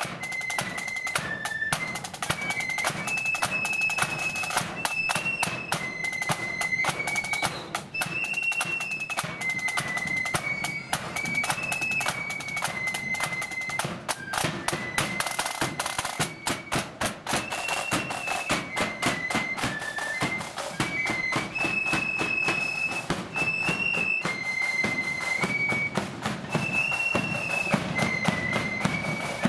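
Blood-and-thunder marching flute band playing: a shrill flute melody over rapid side-drum rolls and a bass drum beat.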